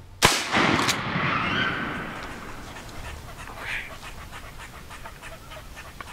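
A single turkey shotgun blast fired at a coyote, with a second sharp crack less than a second later and a long rolling echo that fades over about two seconds.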